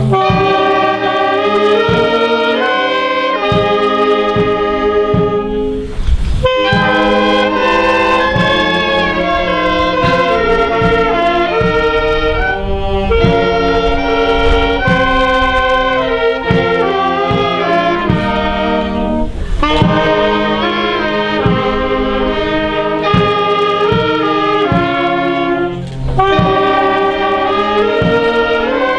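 A brass band playing a slow hymn in held chords, the notes changing about once a second, with short breaks between phrases.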